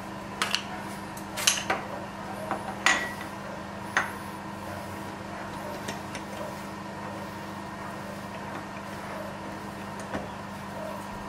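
Steel collet block clinking and knocking against a milling-machine vise as it is flipped over and reseated, with chips being brushed off the vise: several sharp metallic knocks in the first four seconds and one more near the end. A steady machine hum runs underneath.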